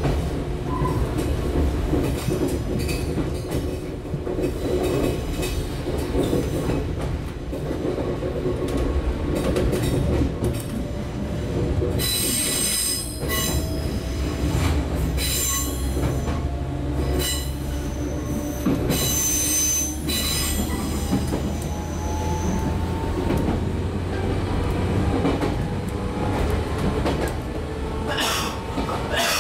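Onboard a JR 115-series electric train's motor car, KuMoHa 115-302, under way: the steady rumble of wheels on rail and running gear. Through the second half a traction-motor hum climbs slowly in pitch as the train gathers speed. Three short bouts of high wheel squeal come a little before and after the middle.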